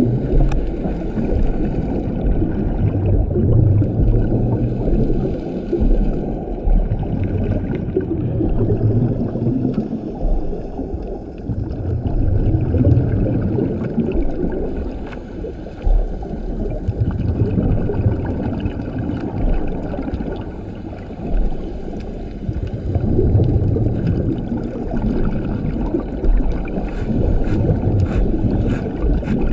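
Scuba diver's regulator underwater: exhaled bubbles gurgling and rumbling in swells every few seconds, over a steady low wash of water noise. A few faint sharp clicks come near the end.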